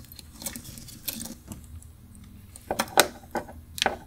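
Small metallic clicks and clinks as a vintage Orient diver watch and its steel link bracelet are handled and turned over, with the sharpest cluster about three seconds in.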